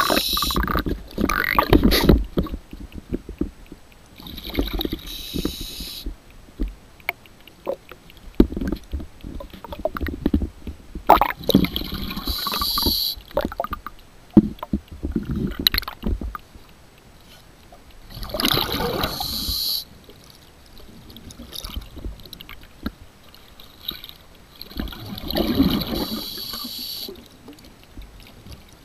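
Underwater diver's breathing regulator heard through the camera housing: four breaths about seven seconds apart. Each is a hissing inhalation followed by a low bubbling rumble of exhaled air, with scattered knocks of the camera being handled.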